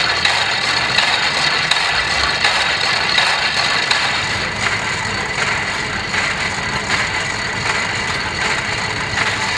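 Old electrically driven log saw cutting steadily through a log, the blade rasping through the wood, with the belt-driven generator running alongside.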